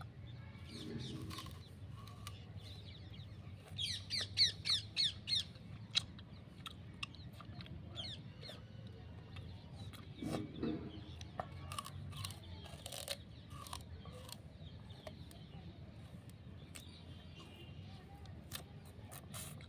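Raw sugarcane being bitten and chewed: scattered crisp snaps and crunches of the fibrous cane. A bird chirps a quick run of about six notes about four seconds in.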